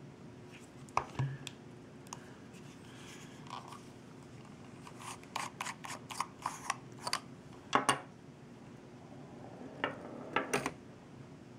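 Small metal clicks and light scraping as the stainless-steel parts of a Taifun GT rebuildable tank atomizer are handled and adjusted: a run of quick clicks through the middle, the loudest pair about eight seconds in, and a few more near the end.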